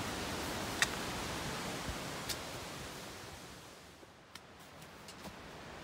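Hiker's footsteps on a rocky, leaf-covered trail: a few sharp clicks over a steady rushing noise that fades away about two-thirds through.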